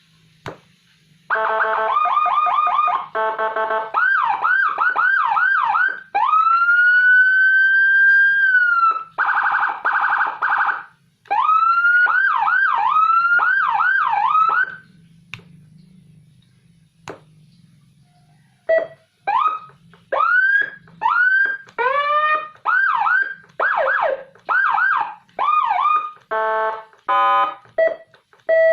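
Electronic siren module playing Whelen-style siren tones. It switches between stuttering horn-like bursts, quick yelp sweeps and a slow wail that rises and then holds. After a pause of a few seconds midway, fast yelp sweeps and short pulsed tones resume.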